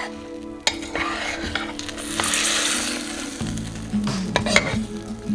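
A metal spoon stirring cooked zucchini and yellow squash through their juices in a crock pot, a wet sloshing with sharp clicks of the spoon against the pot. The sloshing is loudest about two seconds in.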